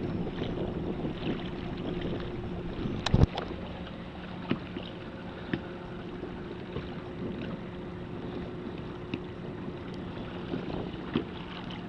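Light wind chop lapping around a kayak, with wind buffeting the microphone and a faint steady low hum. A single sharp knock comes about three seconds in, followed by a few small ticks.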